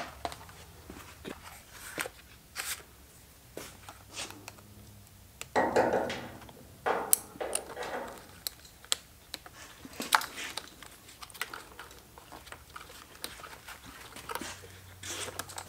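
Plastic motorcycle tail section and its hardware being worked by hand: scattered clicks and knocks, with a longer scraping rustle about six seconds in.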